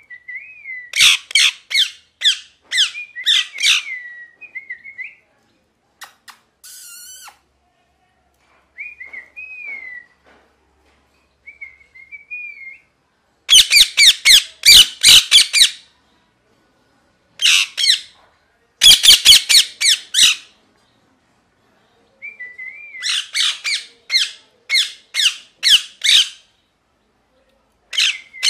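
A parrot screeching in loud bouts of rapid harsh squawks, four bouts in all, with softer wavering chirps and short quiet gaps in between.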